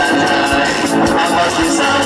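Live music on an electronic keyboard, with a steady backing beat of about two strikes a second.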